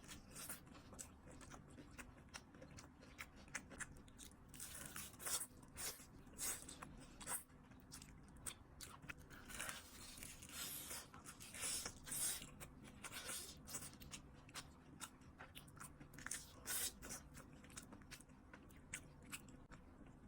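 Crispy fried tornado potato being bitten and chewed close to the microphone: clusters of sharp, crackly crunches throughout.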